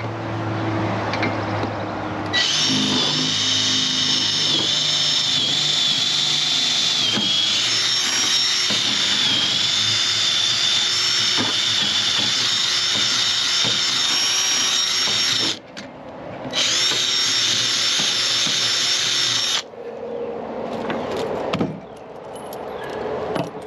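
Power drill drilling into a trailer floor: a steady high whine that runs for about thirteen seconds, stops briefly, then runs for about three seconds more.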